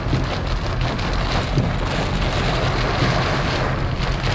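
Rain falling on a moving car, with the car's steady low rumble underneath.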